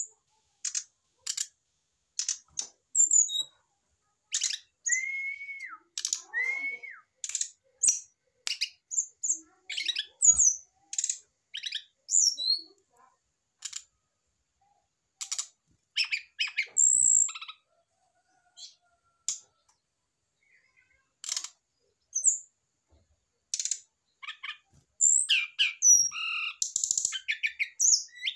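Brown-chested jungle flycatcher calling: an irregular run of short, sharp chips and twitters, with a few short arched whistles in the first third. There is a near-silent pause about two-thirds through, then a denser burst of chips near the end.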